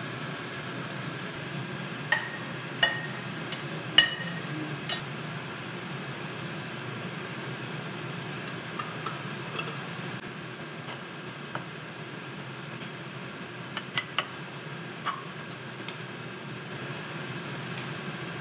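Cooking utensils at work: a spatula stirring and knocking in a frying pan of vegetables, then a spoon and tin clinking against a bowl, giving sharp clinks now and then, several in the first few seconds and a quick pair about two-thirds of the way through, over a steady hiss.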